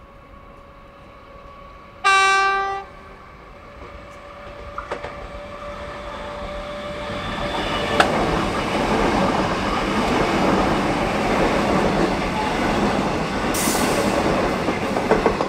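A passenger train's horn sounds one short blast, then the train approaches and passes close by, its wheel and rail noise building to a steady loud rumble with some clickety-clack.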